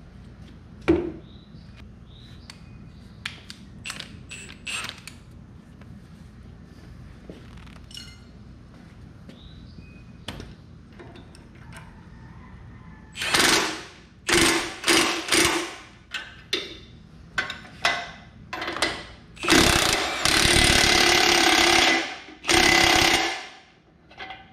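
Cordless impact wrench hammering on a bolt of a stump grinder's belt tensioner, tightening its drive belt: several short bursts, then one long run of about three seconds near the end. Before that, a few light clinks of hand tools on metal.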